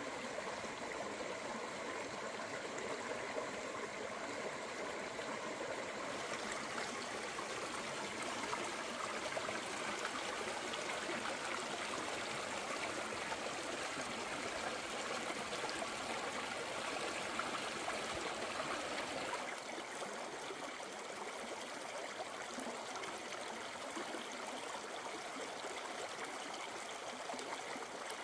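Flowing water, a steady rushing noise with no distinct events, shifting in tone twice along the way.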